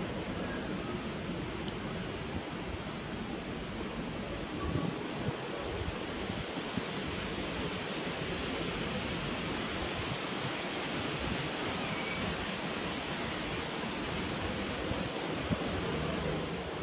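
Steady rushing background noise with a thin, constant high-pitched whine running through it; no distinct eating or animal sounds stand out.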